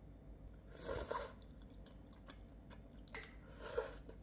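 A person eating thick udon noodles: two short bursts of mouth sounds, about a second in and again about three seconds in.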